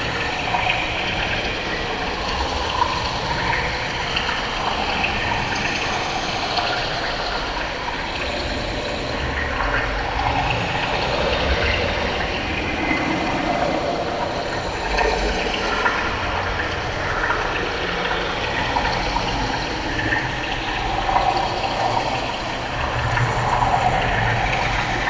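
Underwater ambience: a steady low rumble with irregular bubbling and gurgling water.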